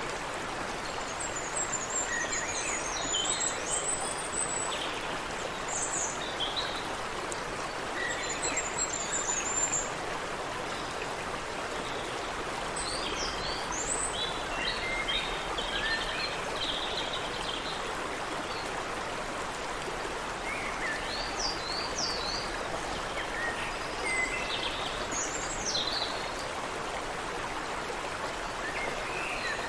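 Water running in a stream, a steady rushing, with several birds singing short chirps and trills over it.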